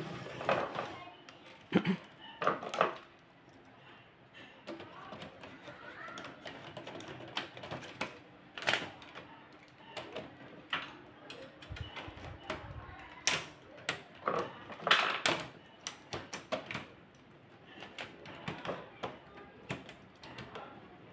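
Irregular plastic and metal clicks and knocks as the fuser unit of an HP LaserJet P1102 laser printer is worked back into the printer's chassis by hand.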